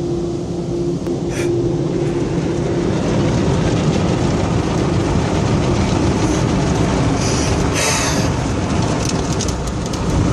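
Automatic car wash working over the car, heard from inside the cabin: spinning cloth brushes scrubbing across the windows and bodywork amid spraying water, a steady, dense wash of noise that grows a little louder after a few seconds.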